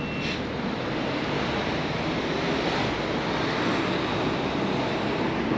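City street ambience: a steady rumble of traffic noise that swells a little a few seconds in.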